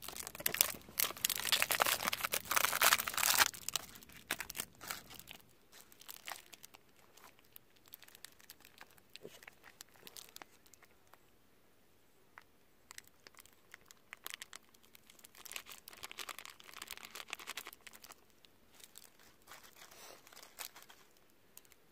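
Plastic food packaging of a convenience-store cold soba cup crinkling and tearing as it is opened and unwrapped by hand. The crinkling is loudest in the first few seconds, then turns to scattered small rustles and clicks, with another burst of crinkling about two thirds of the way through.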